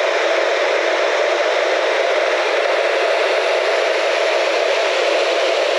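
Storm runoff rushing over concrete spillway steps and churning through a flooded concrete drainage channel: a steady, loud rush of water.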